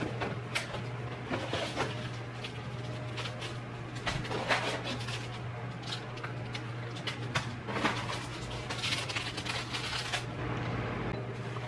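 A cardboard kit box being opened, then plastic candy packets and a paper sheet crinkling and rustling as they are handled and pulled out, in irregular bursts over a steady low hum.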